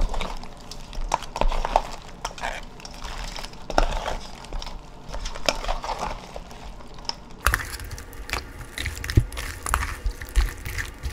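Cut pieces of blue swimming crab being tossed by gloved hands with wet chili seasoning in a large stainless steel bowl: irregular wet squishing and crackling of shells against each other and the bowl. The mixing grows busier and louder about two-thirds of the way through.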